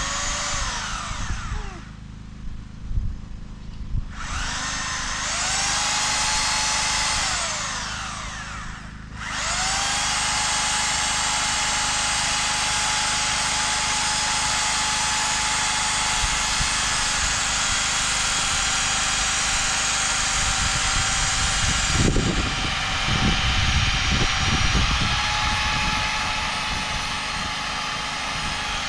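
Electric drill boring holes for mounting CCTV cameras: two short runs with the motor spinning up and winding down, then a long steady run of about twenty seconds, with low knocking through the last several seconds.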